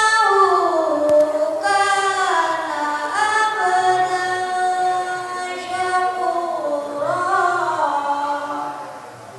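A young boy qori's high voice chanting Quran recitation (tilawah) in one long melodic phrase, the pitch sliding up and down through ornate turns, fading near the end.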